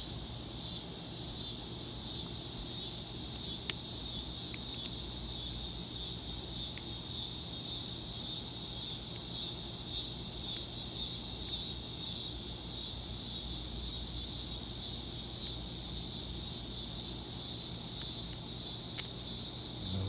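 A steady, high chorus of insects with a fast, even pulsing. A few faint clicks come from a lock pick being worked in a small camlock cylinder.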